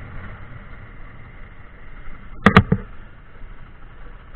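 Honda SP 125 motorcycle running slowly through a U-turn, low and even, with a quick cluster of two or three sharp knocks about two and a half seconds in.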